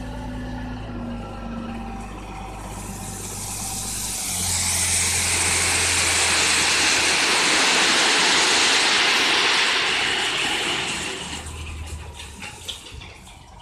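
Ten-wheel dump truck's engine running as the bed tips up, then a load of crushed stone pours out of the raised bed in a long hissing rush that builds from about three seconds in and dies away near the end.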